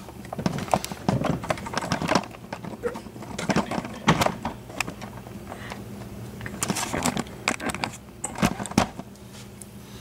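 Scattered small clicks and knocks of small metal lock parts and tools being handled and set down on a workbench, coming in short irregular clusters.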